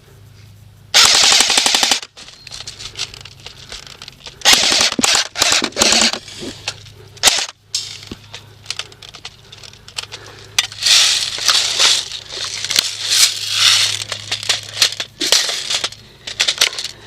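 Airsoft guns firing rapid full-auto bursts: one about a second in, another around four and a half seconds, and a long stretch of rapid fire from about ten seconds on.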